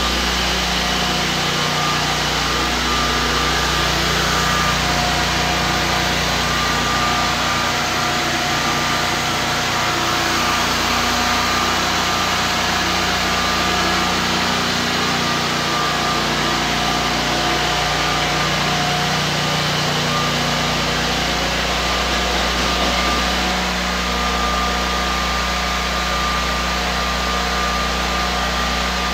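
Walk-behind concrete floor grinder running steadily, its grinding head stripping a paint-chip epoxy coating off a concrete garage floor. It makes a constant mechanical hum with a few steady whining tones over the grinding noise.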